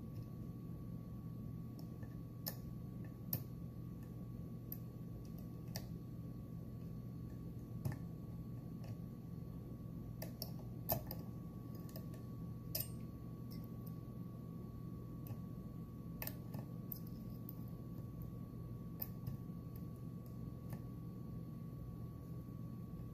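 Small, irregular metallic clicks of a dimple pick moving the pins of a Mul-T-Lock Interactive+ pin-in-pin dimple lock with serrated drivers, while it is held under tension. A steady low hum runs underneath.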